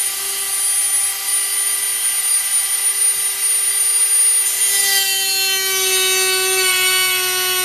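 Dremel rotary tool with a diamond cutting wheel running at high speed with a steady whine, cutting a small tube; its pitch drops slightly about five seconds in.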